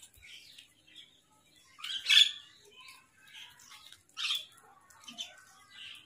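Short, harsh bird calls from a mixed flock of house crows and common mynas feeding on grain. The loudest call comes about two seconds in, with more around four seconds and near the end.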